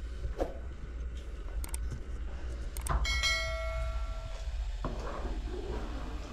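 Metal clinks and knocks, then a sharp metallic clank about three seconds in that rings on with several high tones for about a second and a half, over a steady low rumble.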